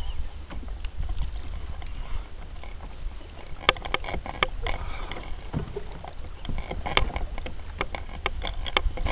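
Water lapping and knocking against a kayak's plastic hull as it moves, with many irregular small clicks and knocks over a low steady wind rumble on the microphone.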